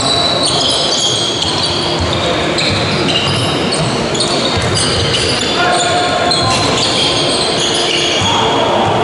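Basketball game sounds: many short, high-pitched squeaks of trainers on the wooden court floor, with the ball bouncing.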